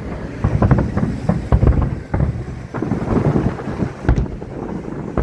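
Fireworks bursting in quick, irregular succession: a dense string of booms and bangs, with wind on the microphone.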